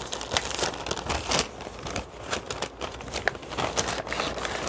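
Brown paper takeout bag crinkling and rustling as its folded top is unfolded and opened by hand, with many irregular crackles.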